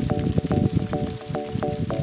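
Background music with a steady beat and short, quickly repeated melodic notes.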